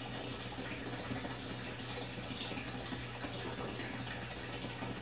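Aquarium water running and splashing steadily over a low steady hum.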